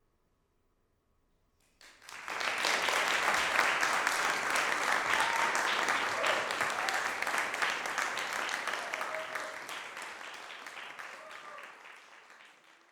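Audience applause that breaks out about two seconds in, holds for several seconds and gradually dies away near the end, with a few voices calling out among the clapping.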